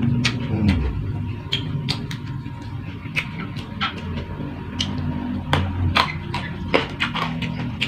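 Close-miked eating sounds: chewing, with irregular wet mouth clicks and smacks, heaviest near the end, over a low steady background hum.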